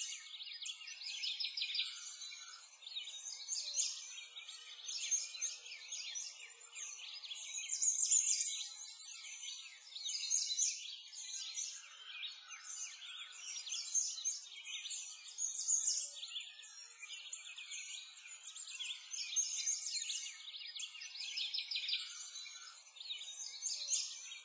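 Dense chorus of many small birds chirping and twittering without pause, a mass of rapid high-pitched chirps that swells and eases every couple of seconds.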